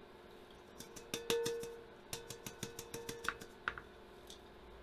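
Metal wok used as a makeshift gold pan, clicking and knocking in quick irregular taps as it is worked over a bucket of water. The pan rings briefly after the loudest knock about a second in.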